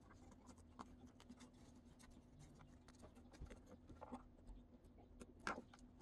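Faint, scattered rustles and small clicks of vinyl electrical tape being wrapped by hand around the soldered terminals of a SpeakON connector, with one slightly louder tick near the end.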